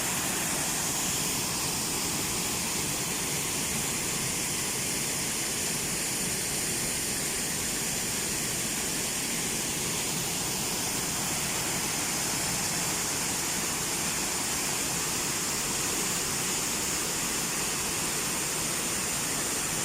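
Steady rushing of flowing water, an even, unbroken hiss.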